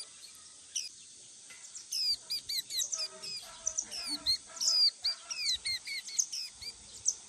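A white-eye calling: a quick run of short, high chirps that slur downward, starting about two seconds in and going on for several seconds.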